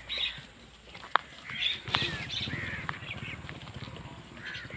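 Small birds chirping repeatedly, with one sharp click about a second in. A low, evenly pulsing hum, like a motor, comes in about two seconds in and keeps going.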